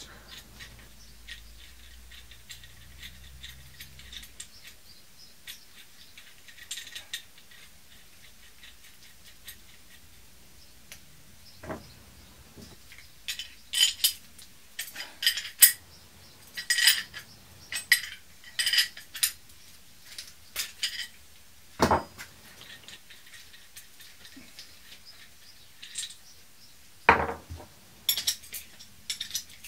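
Irregular metallic clinks and taps from a spanner and a hand-held brake pipe flaring tool being worked on a copper brake pipe. The first dozen seconds are fairly quiet, then the clicks come in clusters through the middle and again near the end.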